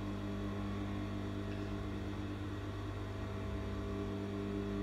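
Steady low electrical hum with several even overtones, unchanging in level.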